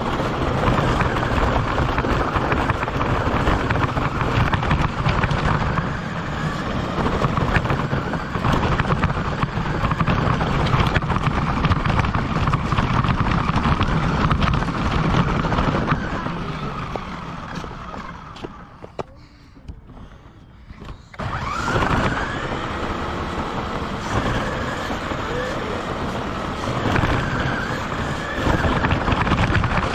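RC car driving, heard from its onboard camera: the drivetrain and tyres running over pavement with a busy, rattling noise. It dies away for a few seconds past the middle, then cuts back in suddenly.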